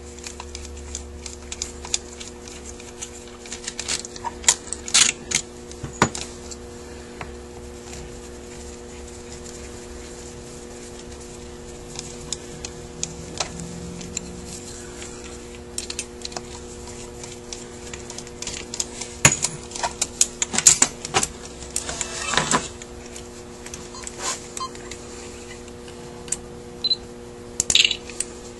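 Scattered small metallic clicks and clinks of tools and screws against the cast metal body of a Rochester Quadrajet carburetor as it is unscrewed, bunched about five seconds in, again around twenty seconds in and near the end, over a steady low hum.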